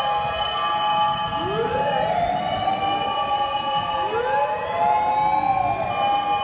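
Several fire-engine sirens wailing at once, each rising and falling slowly out of step with the others, with one tone held at a steady pitch and a low vehicle rumble underneath.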